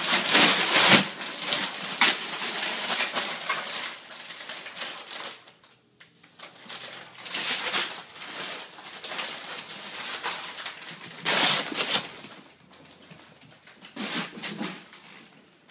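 Plastic bag crinkling and rustling in irregular bursts as a cat scrambles around with the bag caught over its head.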